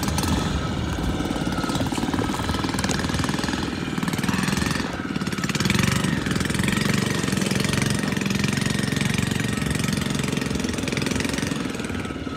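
An engine running steadily with an even, fast pulse.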